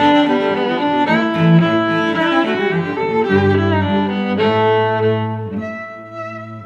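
Background music led by bowed strings, playing a melody that softens near the end.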